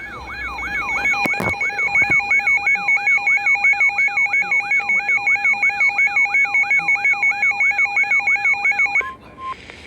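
Weather alert radio's electronic alarm siren: a rapid, repeating falling whoop over steady beeping tones, about three cycles a second, signalling an incoming warning. It cuts off about nine seconds in. A short steady tone follows just before the voice message begins, and there are a couple of clicks about a second and a half in.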